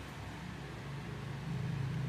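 A steady low hum over a faint hiss, getting a little louder near the end.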